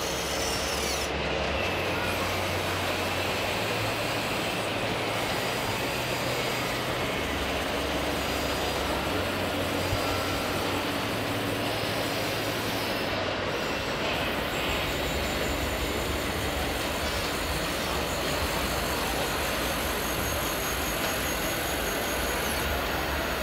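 Steady, even mechanical whirring from a radio-controlled hydraulic mini excavator working its arm and bucket in sand, over the constant din of an exhibition hall.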